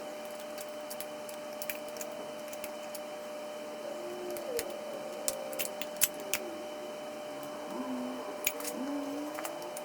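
Irregular sharp metallic clicks and clinks of hand tools at work on the oil pump of a 1950 Mercury engine, over a steady faint hum.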